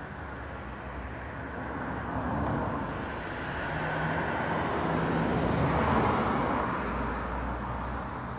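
Street traffic noise from passing cars. The wash of sound swells twice and is loudest about six seconds in before fading away.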